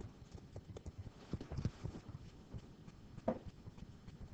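Faint, irregular tapping and knocking, with a short murmur of a voice about three seconds in.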